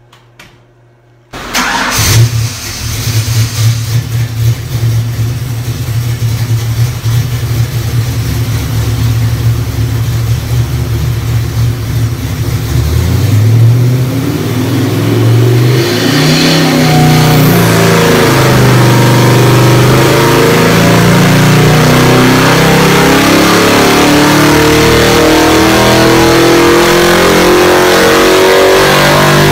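Ford 408 Windsor stroker V8 (351W-based, FiTech throttle-body EFI) on an engine dyno: it comes in abruptly about a second in and runs steadily, then from about 13 seconds it revs up in one long steadily rising pull through the RPM range, the full-throttle dyno pull, easing off right at the end.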